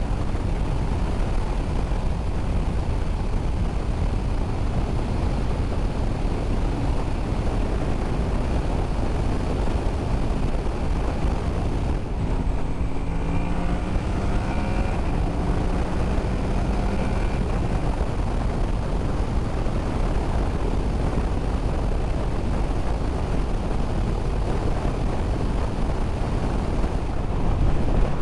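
Honda VFR800F V4 motorcycle being ridden at speed, heavy wind rush over the rider's mic under a steady engine drone. About halfway through, the engine note climbs for a few seconds.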